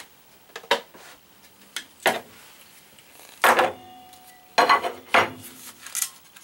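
Glass plates of a UV exposure frame being lifted apart and set down on a bench, giving about six separate sharp clinks and knocks. One, about midway, is followed by a brief ringing tone.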